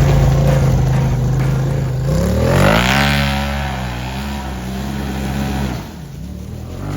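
Engine of a Polaris Xpedition side-by-side running under way: it revs up about two seconds in, holds the higher pitch, then eases off and dips near the end before picking up again.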